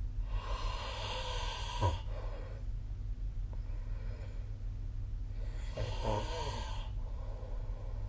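A sleeping person snoring: two long, rasping snoring breaths about five seconds apart, each lasting a second or more.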